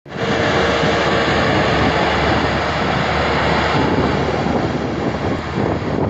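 Tracked combine harvester (Banglamark MS-1200) running while cutting rice: an even, loud mechanical noise of engine and threshing machinery, with a faint steady tone that fades out about four seconds in.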